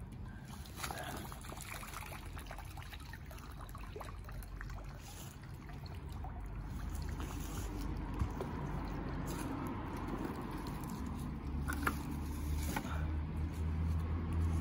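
River water trickling and sloshing off a shopping trolley as it is hauled out of the river, with a few metal knocks. A low steady hum of traffic comes up over the last few seconds.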